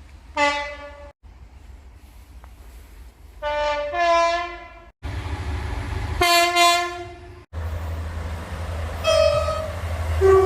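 Trains sounding two-tone horns: a run of short horn blasts, several stepping between a lower and a higher note, over the low rumble of the trains. The sound cuts abruptly three times between separate clips, each with a different rumble beneath.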